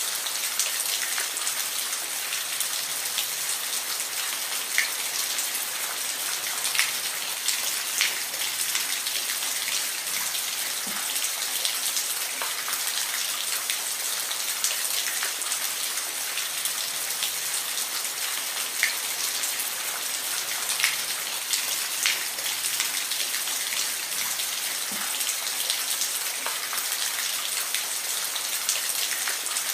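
Steady rain falling, an even hiss with many individual drops pattering close by.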